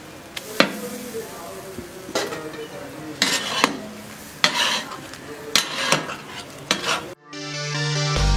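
Metal spatulas scraping and clattering on a large tawa griddle as minced meat and vegetables are stirred and turned, with a sizzle underneath. There are about eight sharp clacks, and background music cuts in near the end.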